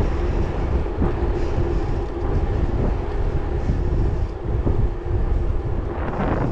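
Wind buffeting the microphone of a handlebar-mounted camera while riding along a road, with a steady hum from the moving vehicle underneath.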